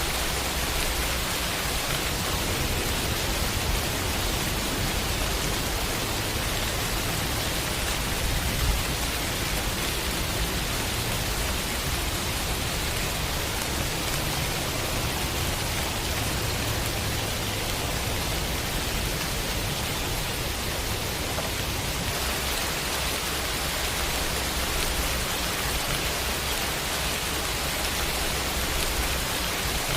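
Heavy rain falling steadily, a dense even hiss with a low rumble underneath that swells briefly about nine seconds in.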